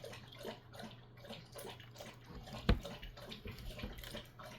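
Faint handling noises of stranded copper battery cable being worked into a terminal lug: small scattered clicks and rustles, with one sharper knock a little past halfway. A steady low hum runs underneath.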